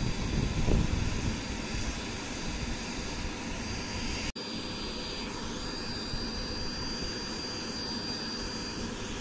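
Homemade forced-air furnace running, a steady rushing roar of the fire with a high-power PC fan blowing air into it, and a thin high whine over it. The sound drops out for an instant about four seconds in.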